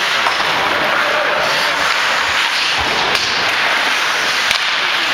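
Steady ice-rink noise during hockey play, with a few sharp cracks from hockey sticks and puck, about three times.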